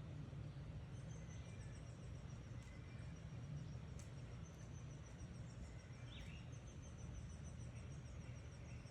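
Faint outdoor wildlife ambience: a high, rapidly repeated chirping starts about a second in and keeps going, with a couple of short bird calls about six seconds in, over a low steady rumble.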